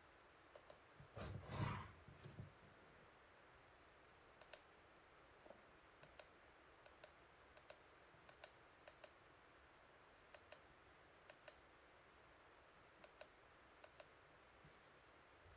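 Faint clicks of the push buttons on an Avid Power cordless tire inflator's digital pressure gauge, pressed again and again in ones and twos to set the target pressure. A louder knock of handling comes about a second and a half in.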